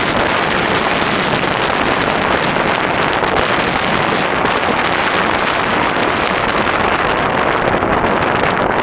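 Tropical-storm wind buffeting the microphone: a loud, steady rush of noise with no let-up.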